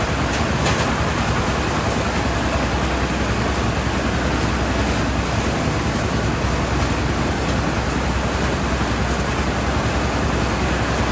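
A small engine running steadily under a loud, even rushing noise.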